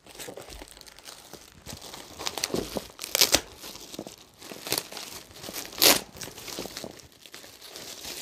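Clear plastic wrapping on a parcel crinkling and tearing as it is slit and pulled open with a knife, in irregular rustles and scrapes, the loudest about six seconds in.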